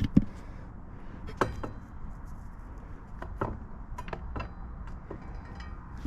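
A few scattered light metallic clinks and knocks as small parts are handled and fitted back onto both sides of a motorcycle front wheel.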